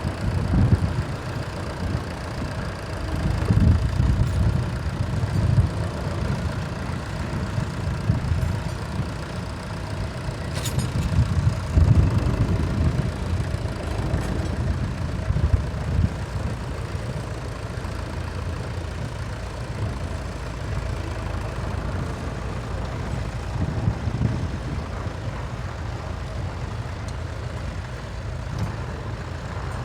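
Fordson Power Major tractor engine running, its low note swelling and easing repeatedly, with a single sharp click about ten seconds in.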